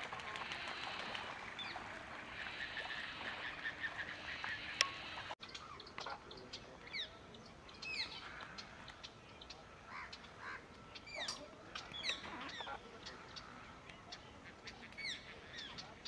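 A dense din of many waterbirds calling together, with overlapping honking and chatter, until about five seconds in. After that come a rose-ringed parakeet's short, shrill calls, each a quick sweep down in pitch, repeated every second or two.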